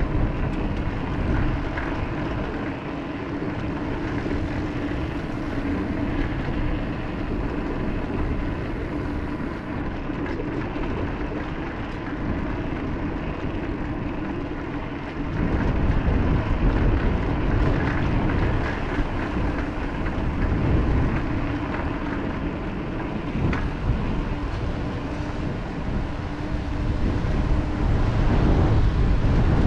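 A steady drone with a faint higher whine held at one pitch, joined about halfway through by wind rumbling on the camera microphone, which grows louder near the end.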